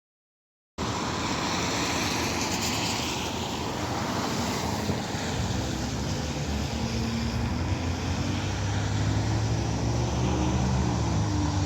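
Road traffic: a vehicle engine running amid steady traffic noise, its pitch climbing slightly through the second half. The sound cuts in suddenly just under a second in.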